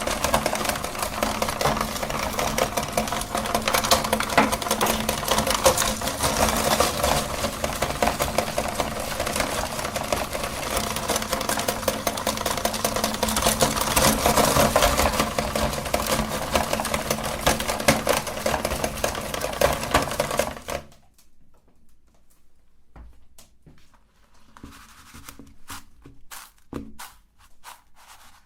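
Electric meat grinder running and crunching hard candy lollipops, its motor hum under a dense grinding rattle. About two-thirds of the way through the motor cuts off suddenly, leaving a few faint clicks and scrapes.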